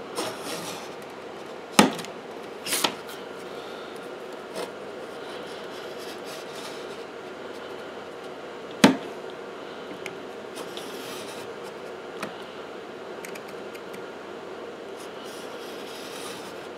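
Snap-off utility knife scoring a copper-clad circuit board blank along a straight edge: low scraping strokes with a few sharp clicks, the loudest about nine seconds in.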